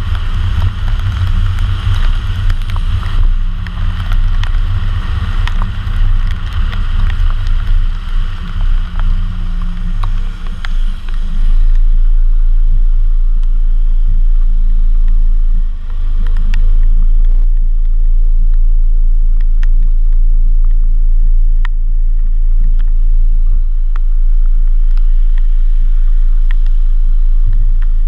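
Car tyres hissing through spray on a wet road, heard from a microphone mounted outside by the rear wheel, over a heavy low rumble. About twelve seconds in the hiss drops away as the car slows and stops in traffic, leaving a steady low drone with a few sharp ticks of raindrops hitting the camera.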